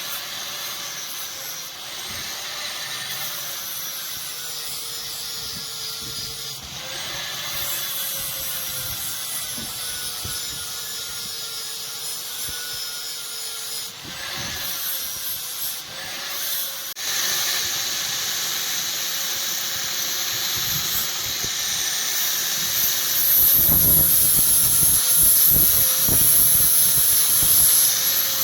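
Electric grinder or sander working a steel knife blank, with a steady abrasive hiss over a motor tone that dips and recovers in pitch as the blade is pressed in. It gets louder in the last few seconds.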